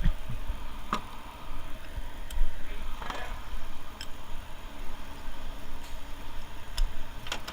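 Scattered light clicks and taps from hand work on small metal parts, a second or more apart, over a steady low hum.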